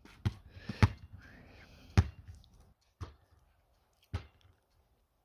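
A basketball dribbled on an asphalt driveway: five single bounces, the first two about half a second apart and the rest about a second apart, the loudest in the middle.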